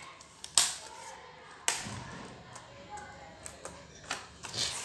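Replacement Acer laptop keyboard being pressed down into its bay, its plastic clips snapping into place with sharp clicks: two loud snaps in the first two seconds, then a few lighter clicks later on.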